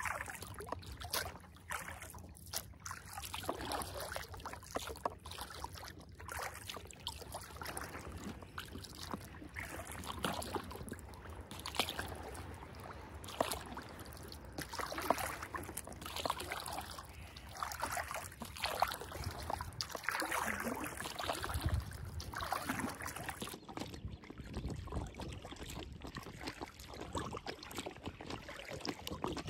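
Double-bladed paddle dipping into the water beside an inflatable kayak, a swish and splash about every couple of seconds over a steady wash of water noise.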